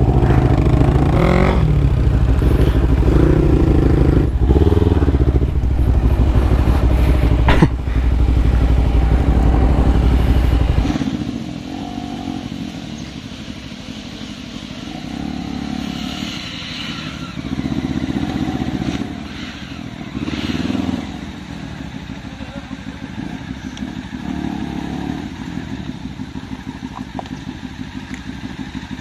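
Kawasaki Ninja 300's parallel-twin motorcycle engine running at low speed on a rough track. For about the first ten seconds it comes with a loud, heavy rumble; then the sound drops abruptly and the engine is heard more quietly, revving up in short bursts a few times.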